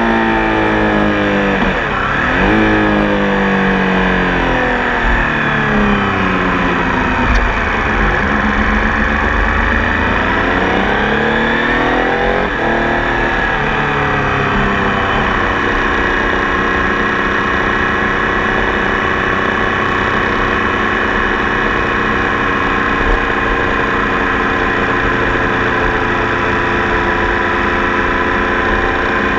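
Tiger Sport 800 motorcycle engine under way, its pitch falling and rising with changing revs through the first half, then holding a steady note from about halfway on.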